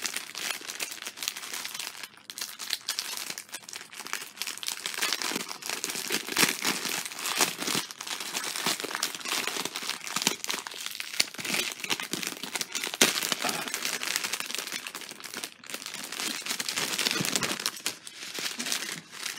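Clear plastic kit packaging crinkling and rustling as it is handled, a continuous irregular crackle of many small crinkles.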